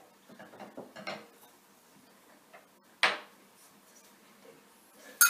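Kitchen utensils and dishes clattering during measuring for cookie dough: soft scraping and clinking, then two loud sharp knocks, one about three seconds in and one near the end that rings briefly like metal on a bowl.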